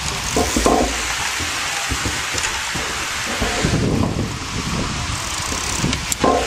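Wind rushing over the microphone of a camera moving fast alongside children's bicycles on a concrete path, with the rolling noise of the tyres. A few sharper knocks come near the start and near the end.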